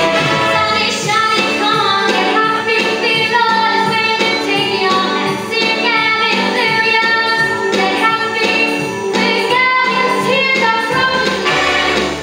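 A young female singer sings a jazz show tune live, over an accompaniment with a steady beat.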